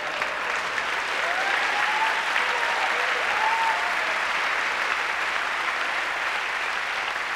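Theatre audience applauding after a punchline, the clapping swelling a second or two in and holding, with a few voices rising over it.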